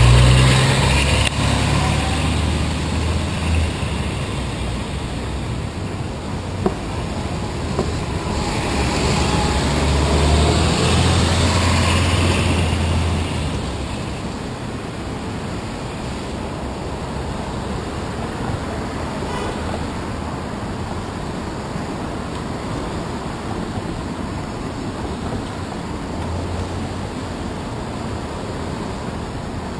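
Busy city street traffic at an intersection: a coach bus's engine running close by at the start and fading as it moves off, then taxis and cars passing, with a louder swell of engine noise about eight to thirteen seconds in before it settles to a steady traffic hum.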